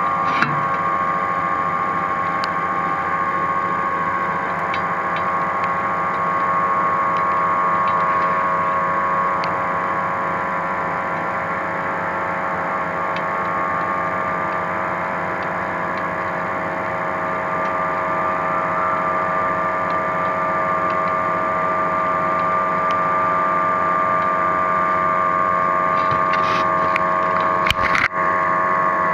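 Steady machine hum made of several held tones over a low rumble, unchanging throughout, with a few brief knocks near the end.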